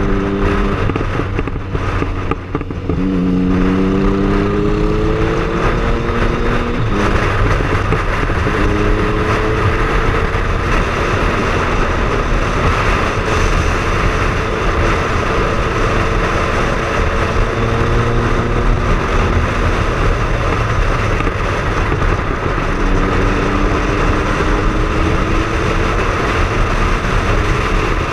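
Triumph Speed Triple motorcycle engine running on the move under heavy wind and road noise; its note dips briefly a couple of seconds in, rises as the bike accelerates, then holds fairly steady at cruising speed.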